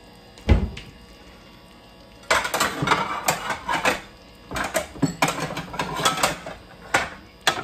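Kitchenware being handled: a dull thump, then runs of rapid clinking and knocking of dishes and utensils, and two sharp clicks near the end.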